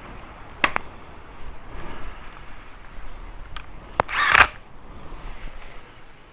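Hand tools working on the rear step's mounting nuts. There is a sharp metallic click just under a second in, then a louder click about four seconds in followed by a short noisy burst about half a second long.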